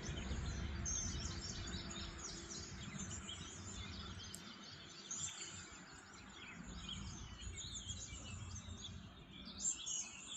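Several birds chirping and singing over a low, uneven rumble of outdoor background noise.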